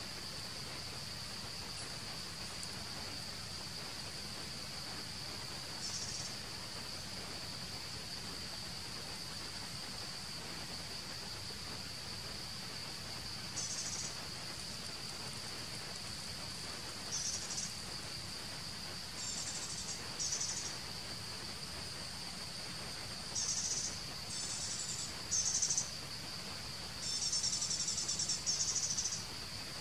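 Steady, high-pitched drone of insects in the forest canopy, with short higher buzzy bursts breaking in now and then, more often in the second half.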